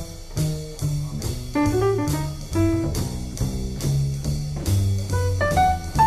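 Instrumental jazz background music: a bass line under a steady drum beat, with a melody of short notes higher up.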